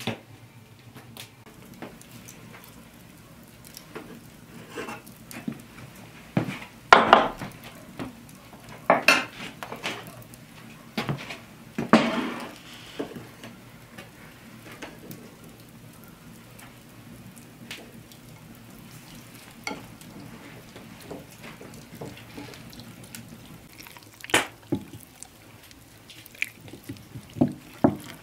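Kitchen handling sounds: scattered clinks, taps and knocks of utensils against dishes and pans. A cluster of louder clatters and scrapes comes in the first half, and a few sharp knocks come near the end.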